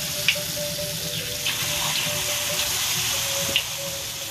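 Egg-and-flour batter frying in hot oil in a wok: a steady sizzle with a few sharp pops of spattering oil.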